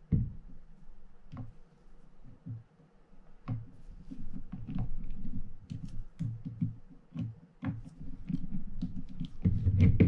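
Small screwdriver backing out the side-plate screws of a Shimano TLD 50 LRS fishing reel: irregular light clicks from the tool in the screw heads, with soft knocks as the reel is handled, getting busier in the second half.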